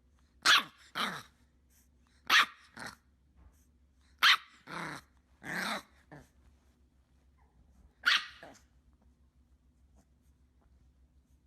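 A dog barking: short, sharp barks, mostly in pairs, about nine in all, the last about eight seconds in.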